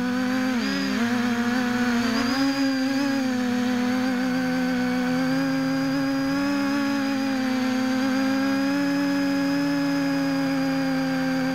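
Small FPV quadcopters' electric motors and propellers humming steadily at a high pitch. The hum dips and recovers in pitch a couple of times in the first two seconds, while a second, lower hum wavers up and down alongside it.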